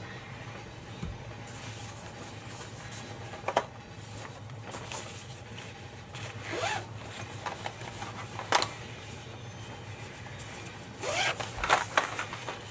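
Zipper on a fabric pouch and bag being pulled in short, quick strokes: single pulls a few seconds apart, then a quick cluster near the end. A steady low hum runs underneath.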